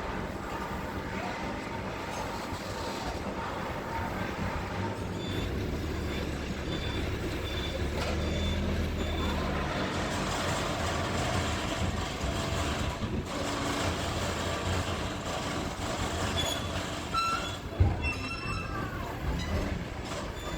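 Diesel engine of a TCM forklift running steadily under work, with a short high beep repeating for a few seconds in the middle. A single sharp clank comes near the end.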